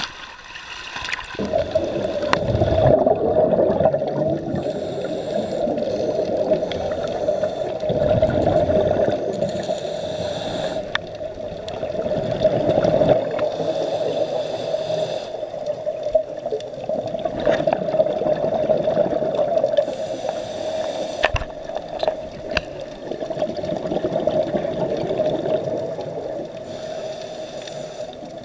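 Surface sloshing gives way about a second and a half in to underwater sound: a scuba diver breathing through a regulator, a hiss of inhaled air and a rumble of exhaled bubbles about every five seconds. A steady hum runs under it.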